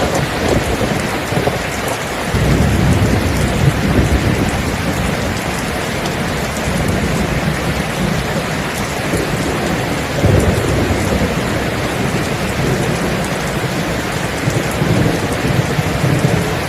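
Steady rain falling, with distant thunder rumbling low beneath it, swelling about two seconds in and again near the middle and near the end.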